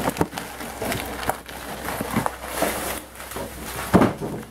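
Cardboard shipping box being handled and opened: rustling and scraping of cardboard with scattered knocks, and a louder thump about four seconds in.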